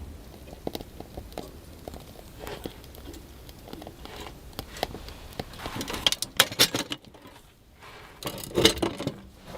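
Dry sticks and firewood being handled and stacked: scattered wooden knocks and small snaps, with a denser run of clatter about six seconds in and another near the end.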